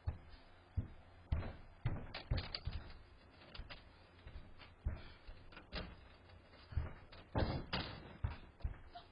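A series of irregular knocks and thumps, a dozen or so spread over several seconds, with the loudest cluster a little over two thirds of the way in.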